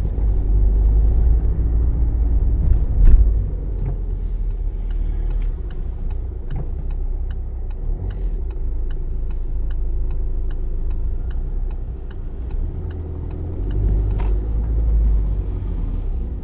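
Car driving on a road: a steady low engine and road rumble, with a single heavy thump about three seconds in. Through the middle comes a regular light ticking, about two or three a second, and the rumble swells again near the end.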